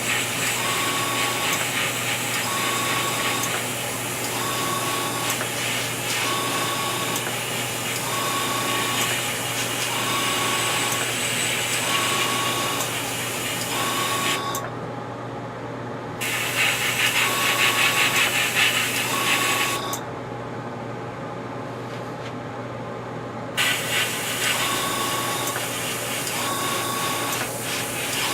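Airbrush spraying paint, a steady air hiss that stops twice as the trigger is let off, over the steady hum of its running air compressor.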